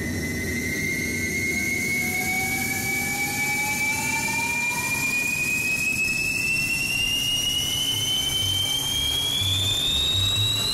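Rocket-launch sound effect: a steady rushing roar with a whistle that climbs slowly and evenly in pitch.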